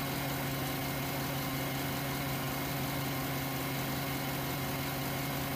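Car engine running steadily, a constant even hum with no change in pitch or loudness.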